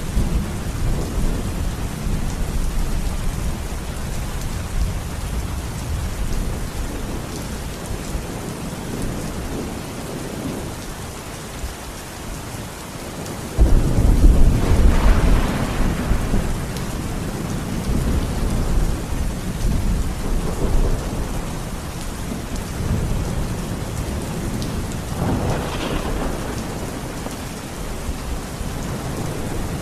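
Thunderstorm: steady rain with low rolling thunder. About halfway through, a sudden loud thunderclap breaks in and rumbles on for a few seconds, and a smaller roll of thunder comes near the end.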